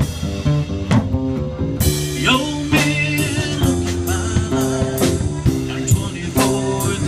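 Live blues-rock band music: a plucked acoustic bass guitar over a drum kit, with a man singing.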